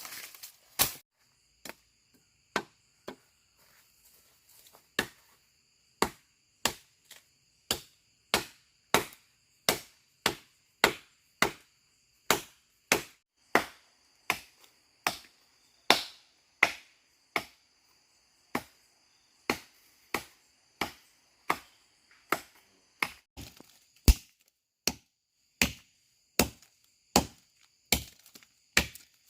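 A steady run of sharp chopping strikes, a few scattered ones at first, then a regular beat of about one and a half strikes a second.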